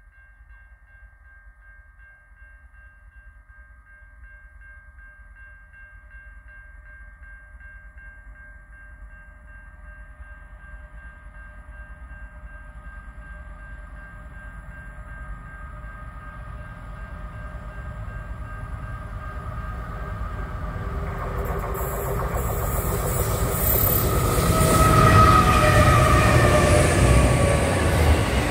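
Freight train approaching from far off and passing close by: a steady mechanical hum that grows louder over about twenty seconds, then tones that fall in pitch as it goes by, with the rush of wheels on the rail over the last few seconds.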